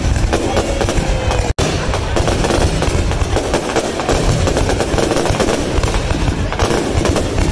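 Fireworks display: a dense, rapid run of bangs and crackling from aerial shells and rising fountains bursting overhead, cut off for an instant about a second and a half in.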